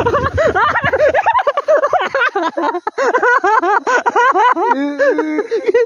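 A high-pitched voice chattering rapidly in quick rising-and-falling bursts, with no clear words. A motorcycle engine runs underneath and drops away about a second in.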